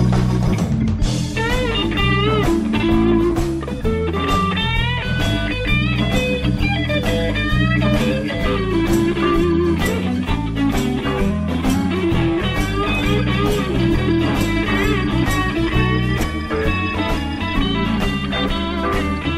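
Electric blues band playing live, an instrumental stretch with lead guitar bending notes over bass and a steady beat.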